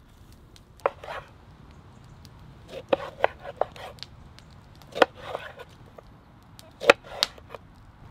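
A kitchen knife cutting through rainbow trout and lemon and knocking on wooden cutting boards: sharp knocks in small groups roughly every two seconds.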